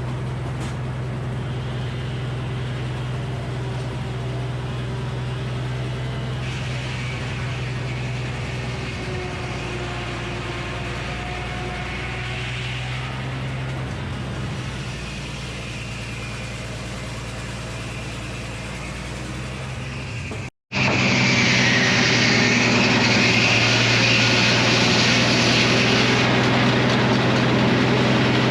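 Frick circular sawmill and its power unit running steadily with a constant drone. The sound drops out for a moment about twenty seconds in and comes back louder and brighter.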